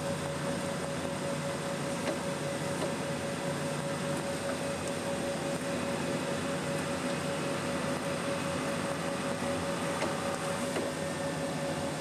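Tractor engine and drivetrain running steadily, heard from inside the cab, with a constant whine over the engine noise.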